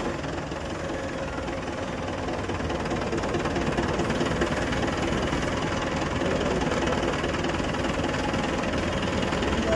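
Steady engine or machine running noise, continuous and even with no separate strokes, slowly growing a little louder.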